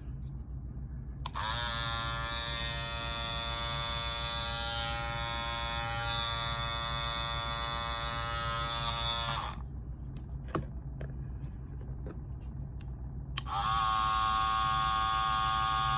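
Two Andis Master cordless hair clippers run one after the other: the first is switched on and buzzes steadily for about eight seconds, then is switched off; after a few clicks of handling, the second is switched on and buzzes a little louder at a similar steady pitch.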